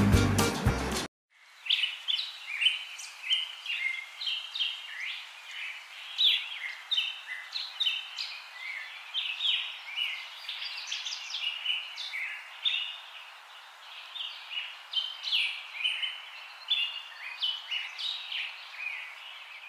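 Many songbirds chirping and singing at once, quick overlapping calls over a steady background hiss. Music cuts off about a second in, just before the birds begin.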